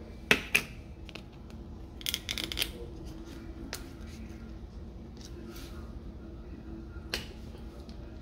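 Kitchen handling noise: a few sharp clicks and, about two seconds in, a brief burst of quick rattling clicks, over a steady low hum.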